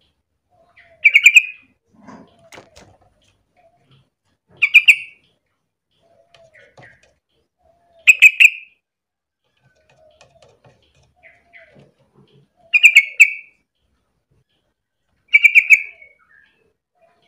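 Yellow-vented bulbul calling: five short, loud bursts of quick chattering notes, each about half a second long and a few seconds apart.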